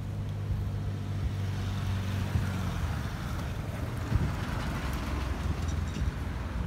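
Cars driving past on a road. A low engine hum is followed, from about the middle, by a rise of tyre and road noise as a car goes by.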